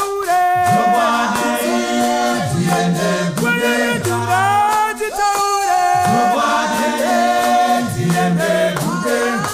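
Men's church choir singing a Shona gospel song unaccompanied, in several-part harmony over a deep bass line.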